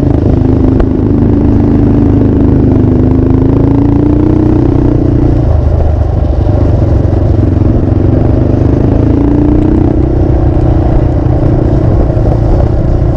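Motorcycle engine under way on light throttle, its note climbing slowly for about five seconds, falling away, then climbing again from about eight seconds in, over a steady low rumble.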